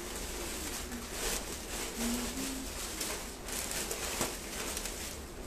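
Soft rustling and shuffling of clothing fabric, in short bursts, with a faint low cooing call about two seconds in.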